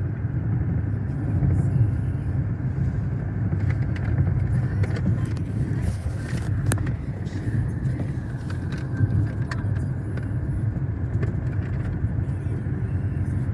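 Steady low rumble of engine and road noise heard from inside a moving car, with a few light clicks about six seconds in.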